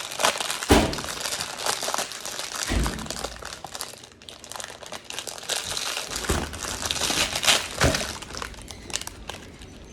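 Plastic packaging crinkling and rustling as a package is handled and opened, with a few dull knocks along the way.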